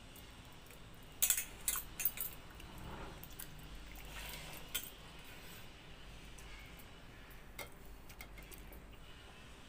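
Light metallic clinks and jingles of bangles and fingers against steel plates while eating by hand: a quick cluster of clinks a little over a second in, then a few scattered ones.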